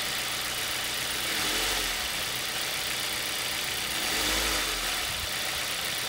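Ford Duratec HE four-cylinder engine running with its accessory belt off the crankshaft pulley, rising briefly in revs twice. It runs smoothly with no knock, which shows that the knock came from the belt-driven pulleys and not from inside the engine.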